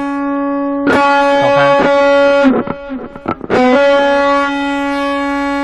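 Distorted electric guitar playing a lead line from a solo in C-sharp minor. One note is sustained, broken about two and a half seconds in by a second or so of short picked notes, then held again.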